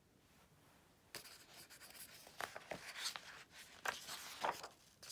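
A picture book's paper page being handled and turned by hand: faint rustling and sliding scrapes with small crackles, starting about a second in.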